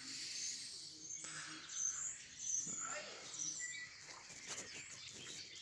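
Faint birdsong: scattered short, high chirps from small birds over quiet outdoor background noise.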